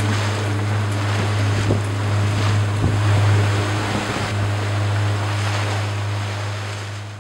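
A boat's motor running steadily with a deep hum, under the rush of water and wind past the hull, with occasional splashes, the whole fading out at the end.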